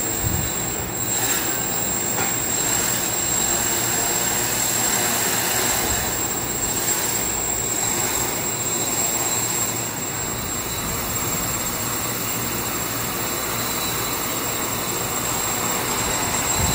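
Quadcopter's four Emax brushless motors spinning 10-inch propellers: a steady rushing noise with a thin, high, steady whine over it.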